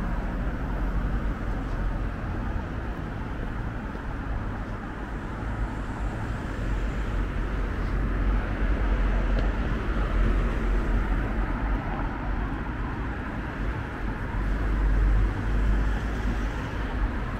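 Street traffic passing: a steady rumble and tyre noise of cars going by, swelling louder around the middle and again near the end as vehicles pass close.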